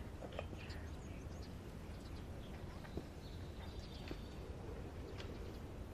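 Faint outdoor ambience: a low steady rumble with a few soft scattered ticks, and a thin high chirp about three to four seconds in.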